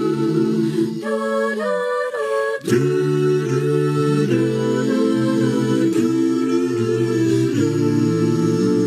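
A small a cappella vocal group sings wordless, humming-like close harmony, holding sustained chords that change every second or so. There is a brief break about two and a half seconds in before the next chord.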